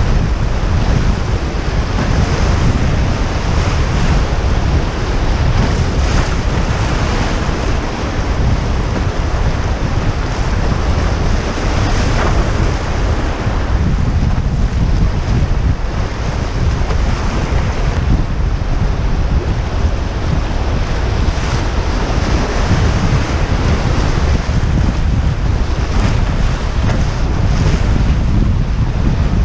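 Steady rushing of whitewater around a canoe running a rapid, with heavy wind rumble on the camera microphone.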